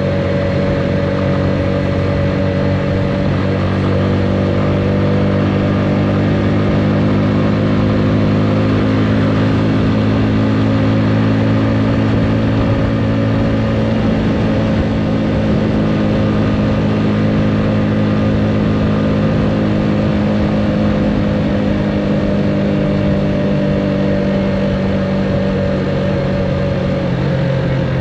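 Motorcycle engine running at a steady cruising speed, holding one even pitch over a steady rush of wind and road noise. Near the end the engine note drops slightly as the throttle eases off.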